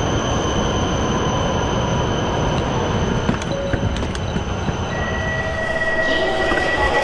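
Shinkansen bullet train noise at a station platform: a steady rumble with a thin high whine that fades about six seconds in. There are a few light knocks near the middle, and a steady high tone begins about five seconds in.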